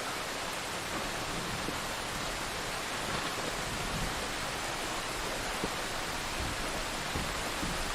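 Steady heavy rain falling, an even hiss with no thunder.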